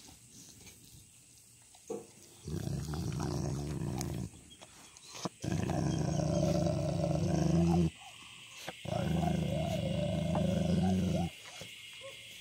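A dog growling, three long, low growls of two to three seconds each with short breaks between; the last one wavers in pitch.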